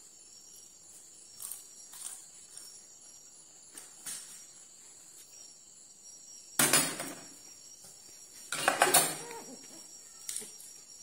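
A person eating with chopsticks from porcelain bowls. There are a few light clicks of chopsticks against the bowls, then two louder bursts of eating noise a little past the middle, while a bowl is held to the mouth.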